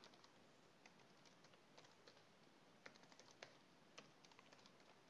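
Faint computer keyboard typing: scattered, irregular key clicks over near silence.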